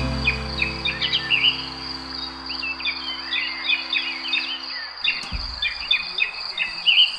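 Small birds chirping in quick, rapid notes over a steady, high insect drone, with soft sustained music notes underneath that fade out about five seconds in.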